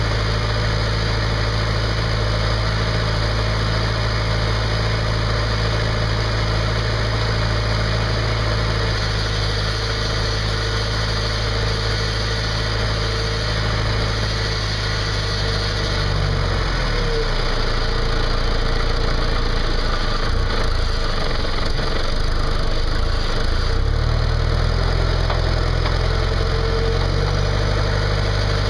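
John Deere tractor's diesel engine running steadily near idle, then its note breaks up and changes speed for several seconds about halfway through as the front loader works the wrapped silage bale, before settling into a steady run again.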